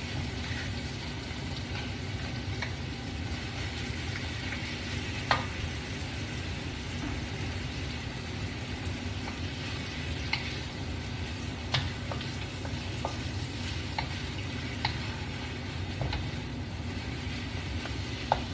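Chicken pieces and frozen stir-fry vegetables sizzling steadily in a pan. A stirring utensil clicks against the pan a handful of times.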